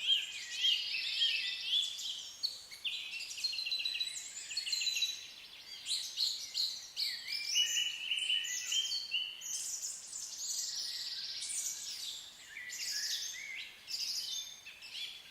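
A dense chorus of many songbirds singing at once, overlapping chirps and trills that rise and fall, with no pause.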